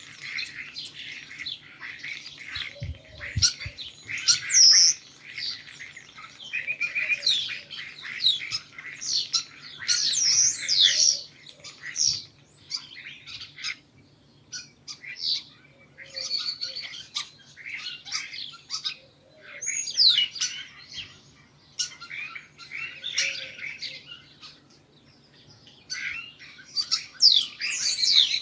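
Many small birds chirping and chattering at once in dense, overlapping short calls, thinning out briefly about halfway through and again about three-quarters of the way.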